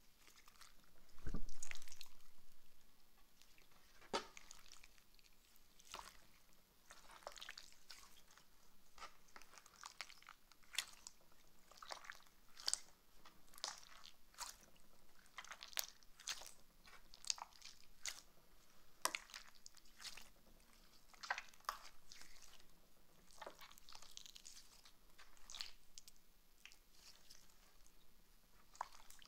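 Slime being squished and kneaded by hand: an irregular run of small sticky pops and crackles, with one louder thump about a second in.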